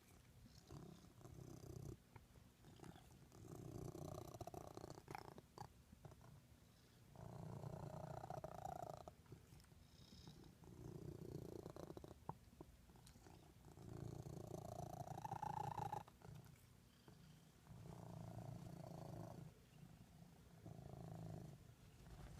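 A domestic cat purring quietly in long, rhythmic swells, broken a few times by short, sharp hiccups.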